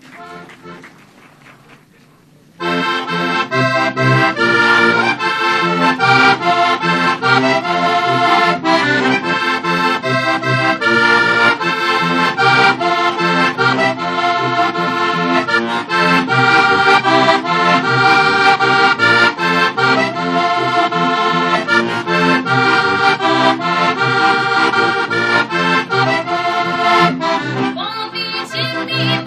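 Heligonka, a Slovak diatonic button accordion, starts playing about two and a half seconds in: a folk tune of sustained chords over a regular pulsing bass.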